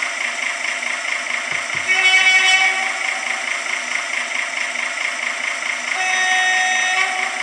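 Sound decoder of an REE Moyse MB-050S model shunting locomotive playing a diesel engine idling through its small onboard speaker. Over it come two horn blasts, a short one about two seconds in and a longer one near the end. Two soft thumps come just before the first horn.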